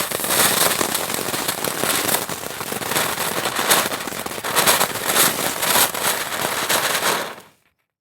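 Crackling firework fountain spraying a dense, continuous crackle of tiny pops, which stops near the end.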